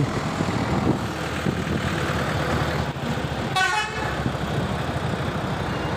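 Vehicle engine running with road noise while moving, and a short horn toot about three and a half seconds in.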